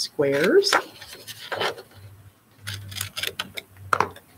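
Construction paper rustling and scraping as it is handled, in a few short crisp strokes over a faint low hum.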